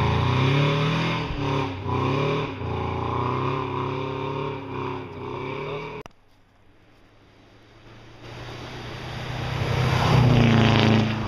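Rally car engine at high revs, its pitch dipping and climbing again at each gear change as it pulls away. After an abrupt cut, another rally car's engine approaches, is loudest about ten seconds in, and passes.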